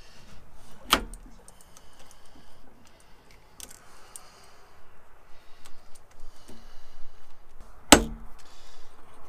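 Metal parts of an Atlas 10-inch lathe's front toolpost being handled and set on the cross-slide: light metallic clicks and rattles, with two sharp metal clanks, one about a second in and a louder one near the end.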